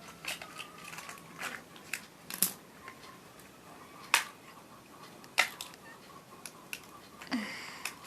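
Fingers working at the plastic wrapping of a toy surprise egg, trying to tear it open by hand: scattered crinkles and clicks, with a few sharper snaps.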